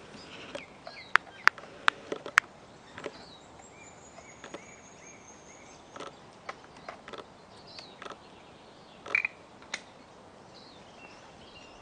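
Faint high chirps and a thin whistle over a steady hiss, with a handful of sharp clicks in the first two and a half seconds.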